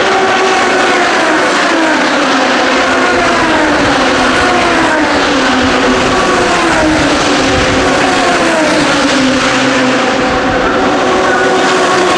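Super Formula racing cars, several in succession, their engines running hard, loud and continuous. Each engine's pitch glides downward as one car follows another, overlapping throughout.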